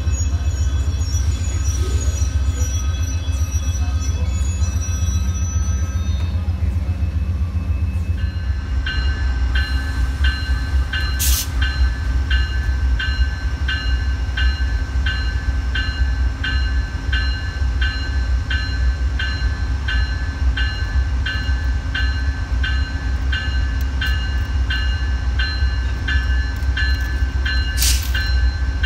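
A train rolls past with a deep, steady rumble. From about nine seconds in, a ringing tone repeats about one and a half times a second over it.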